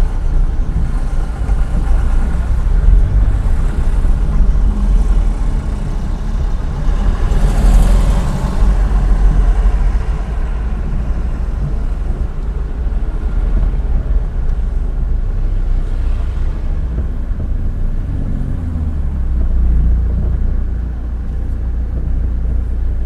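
Car engine and road rumble heard from inside the cabin while creeping slowly in stop-and-go traffic, with a louder rush of noise about eight seconds in.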